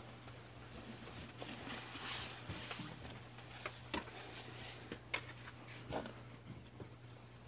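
Steady low hum inside a stopped electric commuter train car, with a faint hiss and a few sharp clicks and taps scattered through the middle.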